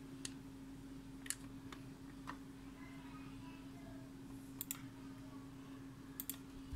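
Computer mouse clicking: a few single sharp clicks, then two quick double clicks about a second and a half apart, over a steady low hum.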